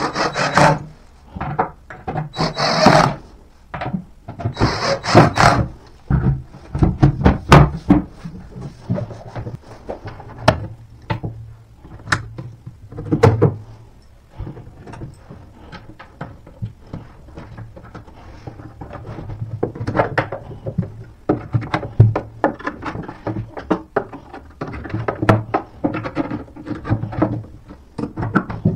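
A cordless drill driving screws in three short bursts, fixing metal drawer runners to a furniture panel. After that, a hand screwdriver turning screws, with many clicks, knocks and thunks as the panels and runners are handled.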